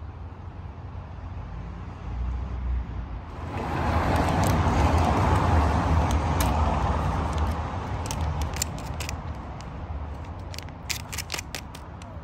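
A car passing by: a broad rush of engine and tyre noise that swells about three seconds in and fades away. Over the last few seconds, sharp crackles of a plastic treat pouch being squeezed and handled.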